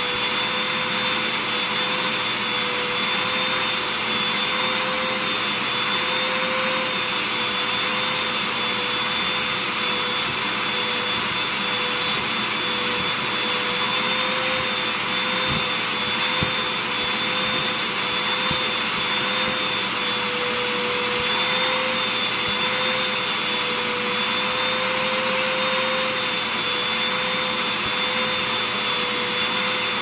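Upright vacuum cleaner running steadily, its hose tool drawing air over a quilted comforter: a constant rush of air with a steady motor whine on top.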